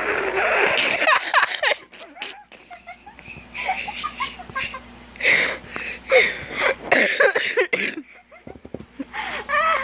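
A person laughing in several breathy bouts with short pauses between them.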